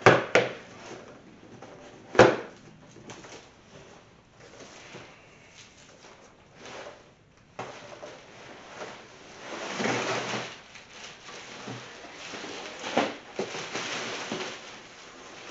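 A large stapled cardboard box being opened by hand: a sharp snap about two seconds in as the flap tears free, then scraping and rustling of cardboard and plastic wrap as the floor mats are slid out, swelling twice near the end.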